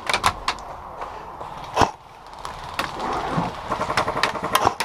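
Airsoft gunfire: strings of sharp clicks from BBs being fired and striking cover. There is one loud crack a little under two seconds in and a fast run of clicks near the end.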